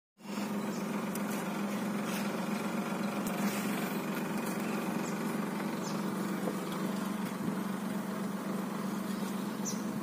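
Steady hum of an idling vehicle engine, even in pitch throughout, with a few faint, brief high chirps.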